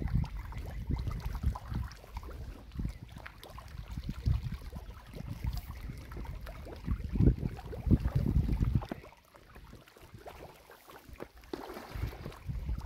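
Water splashing and gurgling as a crowd of pangasius catfish churn and gape at the surface of a farm pond, irregular and mixed with low rumbling buffets. It dies down for a couple of seconds about nine seconds in, then picks up again.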